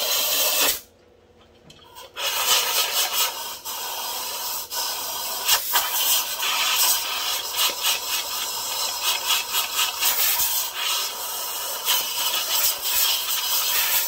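Compressed air hissing from an air-hose blow-gun nozzle, blown into a stopped-up muffler pipe. The air cuts off for about a second near the start, then resumes in uneven spurts.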